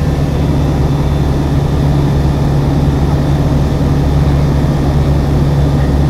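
Ultralight aircraft's engine and propeller running steadily in cruise flight, heard from inside the cockpit as a constant low hum.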